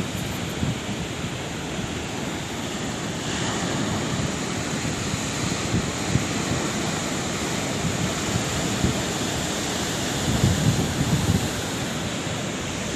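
Sea waves breaking and washing on a shore: a steady rush of surf that swells a little about three seconds in, with louder surges of breaking water around ten to eleven seconds in.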